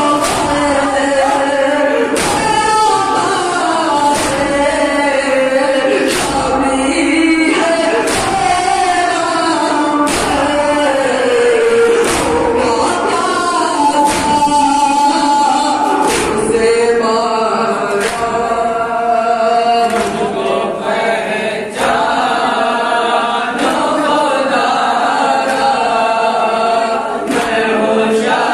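Men chanting a noha, an Urdu mourning lament, a lead voice at the microphone joined by a group. Sharp strikes of matam, hands beating on chests, fall in time about every two seconds.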